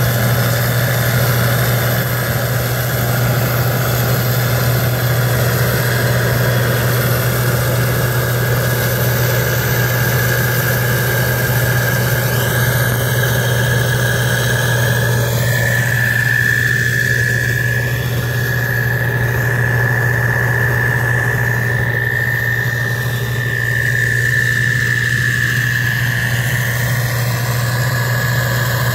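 Farm machinery engine running steadily: a deep drone with a continuous high whine over it.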